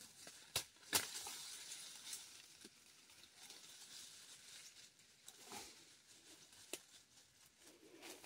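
Two sharp knocks of a bolo knife striking the ground, about half a second apart, near the start. After them comes faint rustling of grass and dry leaves, with a few light clicks.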